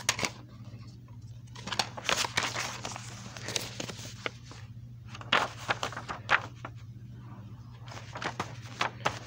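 Plastic DVD cases being handled: clicks, knocks and rustling in four or so short bursts, over a steady low hum.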